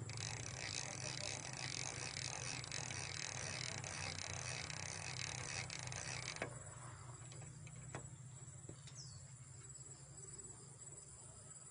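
Dense, pulsing chorus of insects chirring, with a steady low hum beneath; it cuts off abruptly about six seconds in, leaving a quieter background with a few faint clicks.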